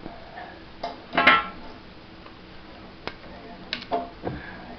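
Hard 3D-printed plastic clicking and clacking as printed parts and broken-off support material are handled: about half a dozen sharp clicks, the loudest a little over a second in.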